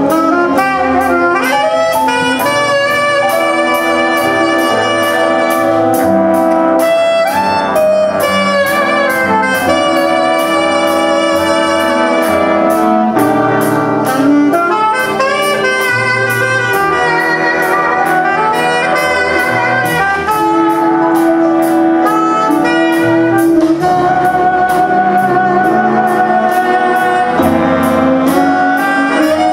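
Youth jazz big band playing, a saxophone soloing in front over brass backing, with a steady beat throughout.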